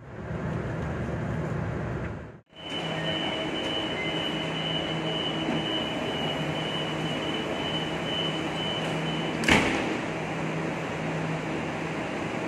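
KTM ETS Business Class electric train at the platform: a steady electrical hum with a high, even tone over it. About nine and a half seconds in, one sharp bang as its sliding door shuts and the tone stops, and the hum carries on as the train starts to move off.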